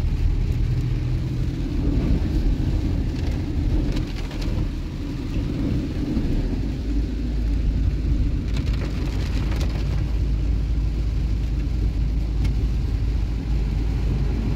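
Cabin sound of a car driving through a heavy downpour on flooded roads: a steady low road-and-engine rumble with rain beating on the roof and windscreen. A few brief splashy hisses come through, about three to four seconds in and again around nine seconds.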